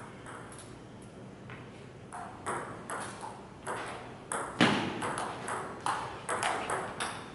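Table tennis rally: the ball clicks sharply off the paddles and the table top. The hits grow quick and regular about two seconds in, several a second, with one especially hard hit a little past the middle.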